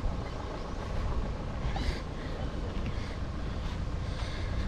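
Car being driven, a steady low rumble of engine and road noise.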